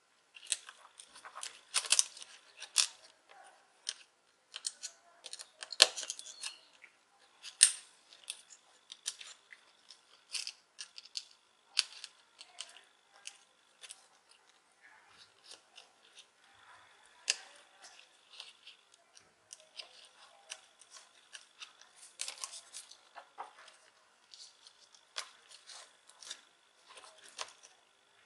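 Fingers handling cables and small parts inside an opened laptop: irregular small clicks, taps and plastic handling noises, a few of them sharper and louder.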